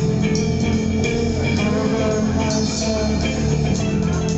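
Live rock band playing an instrumental passage: electric guitar and electric bass with drums, loud and steady.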